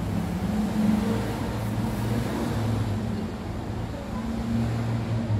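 Steady low rumble of road traffic, with an engine humming nearby that swells and fades.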